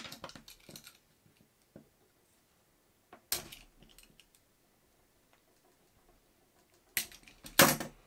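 Hand pliers stripping the insulation from a solar cable, heard as short metallic clicks and rasps. There is a cluster right at the start, one a bit past three seconds, and two just before the end, the last one loudest.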